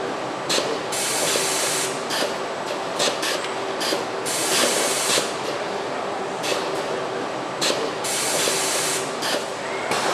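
Pneumatic clamping fixture on an automated car-body assembly line, venting compressed air. There are three hisses of about a second each, spaced roughly four seconds apart, with shorter sharp air blasts between them, over a steady machine hum.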